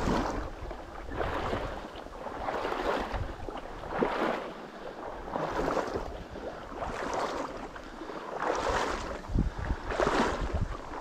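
Wading steps through shallow marsh water: a swish and slosh with each stride, about one every second or so, with a low wind rumble on the microphone at times.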